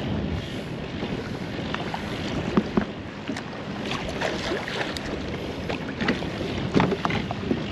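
Wind buffeting the microphone and small waves slapping against a fishing kayak's hull, with a few scattered light knocks.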